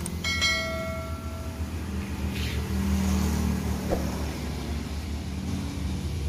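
A subscribe-button sound effect: a short bright chime rings out about a third of a second in and fades over a second or so. A steady low hum runs underneath.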